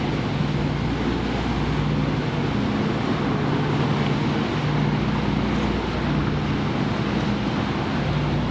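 A marine engine running steadily with a low hum that swells and fades every second or two, under a constant rush of wind noise.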